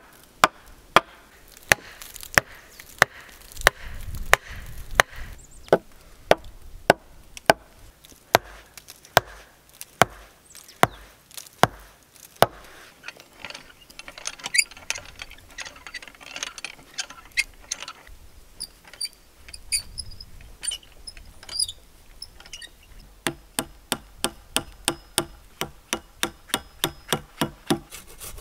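For the first half, a wooden stake is driven in beside a peeled log with a steady run of sharp knocks, about one to two a second. Then a hand auger bores into the log, grinding and creaking with high squeaks. Near the end a hand saw cuts a wooden post in quick, even strokes, about three a second.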